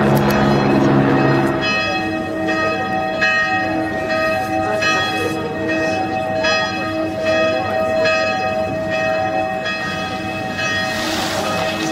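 Bells ringing, with strikes of several overlapping pitches repeating about once a second, after a low held tone that stops about two seconds in. A rushing noise rises near the end.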